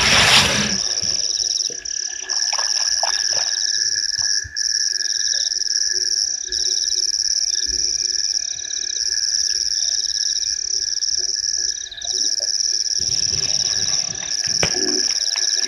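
Night chorus of frogs and insects at a waterhole: a shrill, continuous chirring in phrases a couple of seconds long with short breaks, under it a steady lower trill and short rapid pulsed calls. A brief rush of noise at the very start is the loudest sound.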